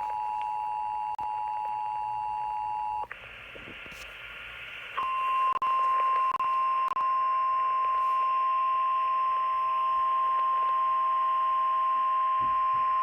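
Emergency alert tones over the radio. A steady two-tone EAS attention signal plays for about three seconds, then a couple of seconds of radio hiss, then a single steady NOAA Weather Radio warning alarm tone for about nine seconds, heralding a severe thunderstorm warning.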